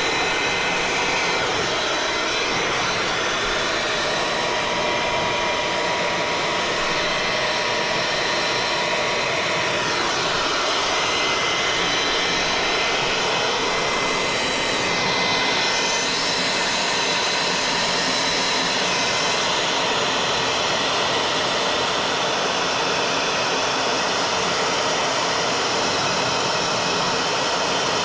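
Ryobi cordless leaf blower running steadily with a motor whine, blowing air into the intake of a model L-39 jet to cool its turbine after shutdown.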